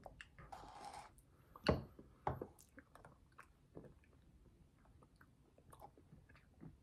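Eating an M&M's McFlurry: a plastic spoon scraping inside the paper cup, then two sharp clicks about two seconds in. Close-up chewing follows, with small crunches from the candy pieces in the ice cream.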